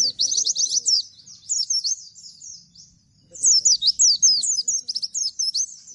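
White-eye (pleci) singing in rapid-fire bursts of high, quickly falling notes, the fast 'nembak' song style. There is a short lull about two seconds in before it starts again.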